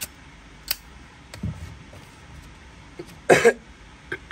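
A man coughs once, briefly, about three seconds in, the loudest sound here. Before it come a few light metallic clicks and clinks as lighters are handled.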